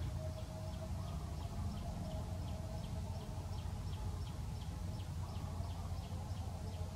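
Outdoor ambience: a steady low rumble under a short high chirp that repeats evenly about three times a second, with faint wavering tones in the middle range.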